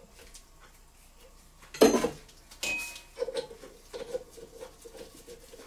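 Handling noise from oiling a small stationary steam engine's steam pipe through a plastic tube. About two seconds in there is a sharp knock, followed by a ringing metallic clink, as the tube and the metal fittings are worked. A faint, rapid pulsing runs through the last couple of seconds.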